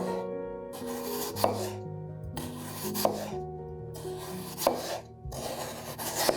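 Knife cutting through food on a board in short scraping strokes, about one every second and a half, over soft background music.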